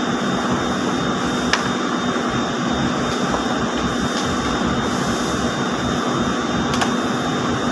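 Steady hum and hiss of textile mill machinery, ring spinning frames running, with a constant low tone and a thin high whine. Two faint clicks, about a second and a half in and near the end.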